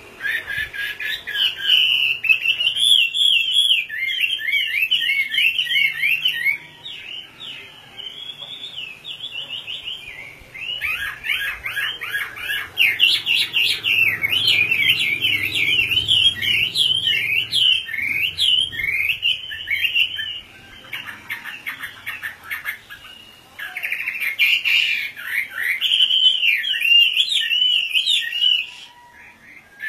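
Chinese hwamei (melodious laughing thrush) singing long, rapid runs of varied whistled phrases, with quieter breaks about seven seconds in, about twenty-one seconds in, and near the end.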